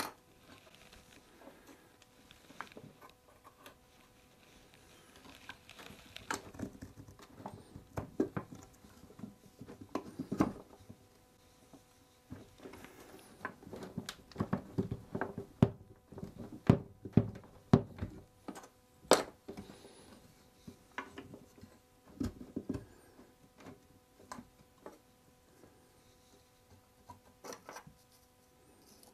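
Handling of a wooden spoked wheel as a wooden wedge is pushed into a rim joint to spread it: scattered light wooden knocks and clicks, busiest about halfway through, over a faint steady hum.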